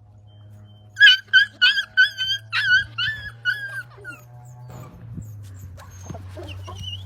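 A dog, high-pitched like a small dog or puppy, gives a quick run of about nine short cries over about three seconds, starting about a second in. A steady low hum runs underneath.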